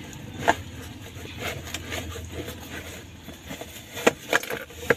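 Plastic bag crinkling and a cardboard box being handled as a small electric cooking pot is pulled out of its packaging. Scattered sharp crackles, with the loudest cluster near the end.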